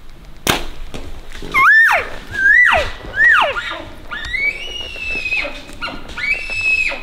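Elk calls: three short mews that each rise and fall, followed by two longer high whistled notes held steady. A sharp click comes just before them, about half a second in.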